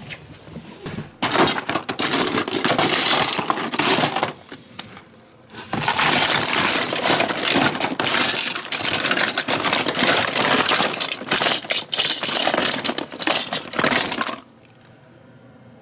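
Small plastic toys, boxes and packaging clattering and rattling in a plastic basket as a hand rummages through them: two long stretches of dense clicking with a short lull between.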